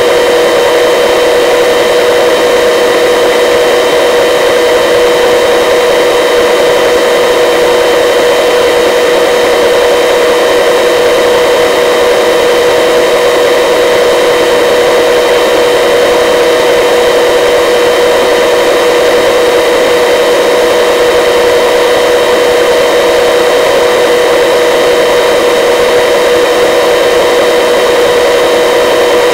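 Search and rescue helicopter's turbine and rotors heard from a litter slung below it: a loud, unbroken drone with steady high whining tones over a rushing hiss.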